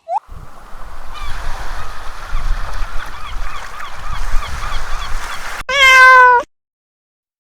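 An animal recording: faint short chirps repeating over a noisy low rumble, then one loud drawn-out animal call about five and a half seconds in.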